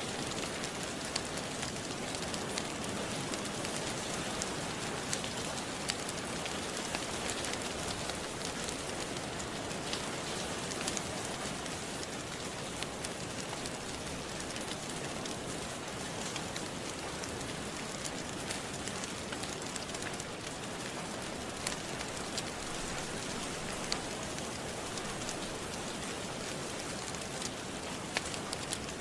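Steady rain falling, with scattered sharp crackles and pops from a wood fire.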